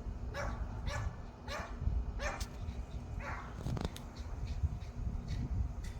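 A dog barking repeatedly, short sharp barks coming quickly for the first few seconds, then fewer toward the end.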